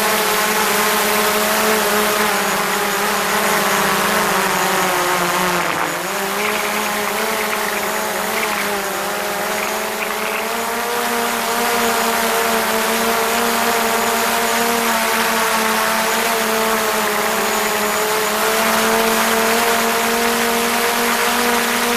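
DJI Mavic Pro quadcopter's four propellers whining steadily in flight, heard up close from a camera mounted on the drone itself. The pitch dips briefly about six seconds in, then settles back.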